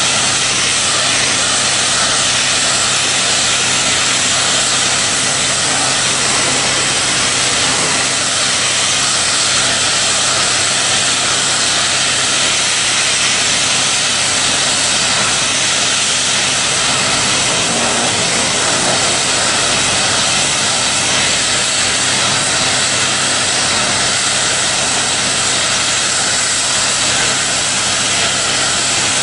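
High-pressure water jet at 500 bar spraying in a continuous loud hiss, over the steady hum of the jetting unit's pump engine.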